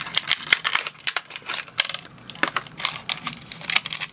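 Plastic toy packaging crinkling and crackling in the hands as it is pulled and torn open, a dense run of sharp crackles with short quieter gaps.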